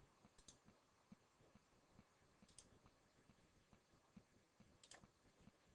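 Near silence: faint room tone with a few soft computer-mouse clicks, a quick double click about half a second in and single clicks around two and a half and five seconds in.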